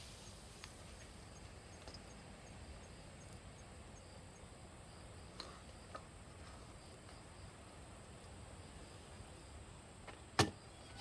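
Quiet campsite ambience with a faint steady high-pitched tone. A few sparse faint clicks and one sharp snap near the end, consistent with a wood campfire crackling.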